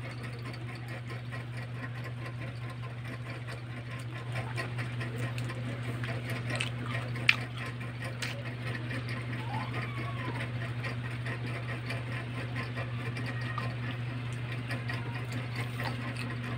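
Mouth eating grapes pulled off the bunch: small wet clicks and smacks of lips and teeth, with one sharper click about seven seconds in, over a steady low hum.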